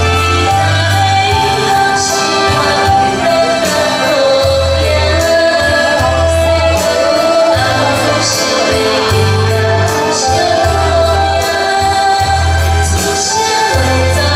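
A woman sings into a microphone over live saxophone and electronic keyboard accompaniment, with the keyboard holding a steady pattern of low bass notes and a light cymbal accent every few seconds.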